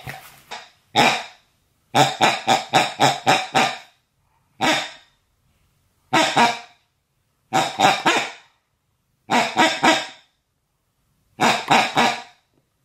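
Barking in short bursts: a quick run of about six barks, then single barks or short groups of barks every second and a half or so, each dropping to dead silence.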